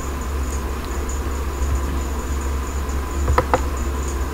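Steady low electrical hum with a faint high whine, broken by two quick clicks close together about three and a half seconds in.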